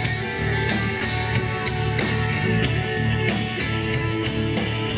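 Live country-rock band playing an instrumental passage between vocal lines, with guitars at the front and a steady beat.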